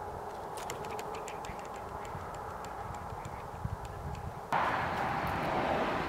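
Outdoor ambience with a scatter of light ticks and clicks over the first half, then a sudden rise to steady wind noise about four and a half seconds in.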